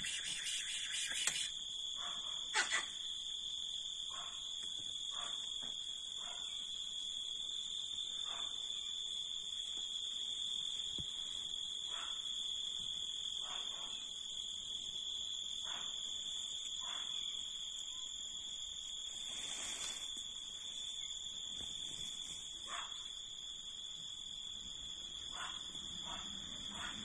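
Cicadas buzzing in one steady, unbroken high-pitched drone, with faint short sounds every second or two.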